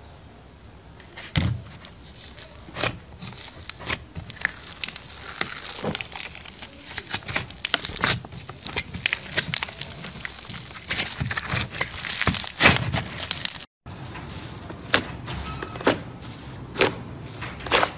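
Slime being squeezed and worked by hand, giving many small crackling clicks and pops, thickest in the middle. It breaks off for a moment and then goes on with sparser clicks.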